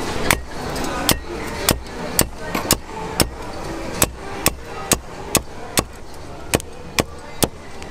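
Large steel cleaver chopping crispy roast pork belly on a wooden chopping board: a steady run of sharp chops, about two a second, as the blade cuts through the crisp skin into the wood.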